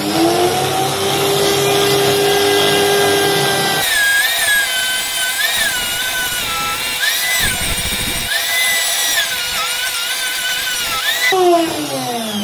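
Handheld rotary tool fitted with a small wire brush wheel, spinning up with a rising whine at the start and then running steadily. From about four seconds in, its whine wavers up and down as the brush is worked against the brass bell to scrub off the old coating. It winds down with a falling whine near the end.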